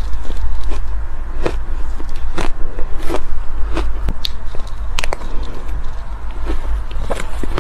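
Close-miked chewing of soft, powdery crushed ice: irregular crisp crunches at an uneven pace over a steady deep rumble.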